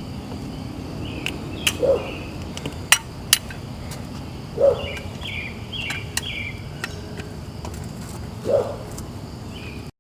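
Car jack being worked to lift the car: several short clunks spaced a few seconds apart and some sharp metallic clicks, with birds chirping in the background.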